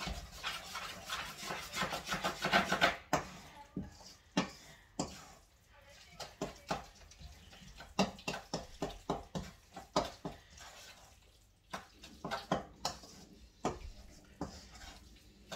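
Kitchen utensils clinking and knocking against dishes in a quick, irregular series of sharp clicks. There is a steadier noisy rush in the first few seconds.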